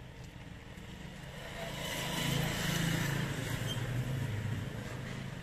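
A motor vehicle driving past on the street, its engine and tyre noise swelling to a peak about two to three seconds in and then easing off.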